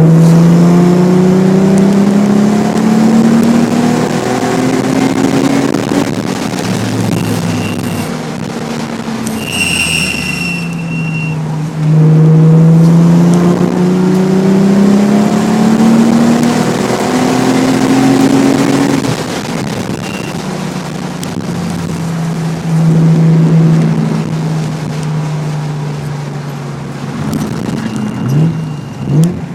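Nissan 300ZX's V6 through an aftermarket Specialty Z exhaust, driven hard on track: the engine note climbs under acceleration, drops, climbs again, then holds steady near the end. A brief high squeal sounds about ten seconds in.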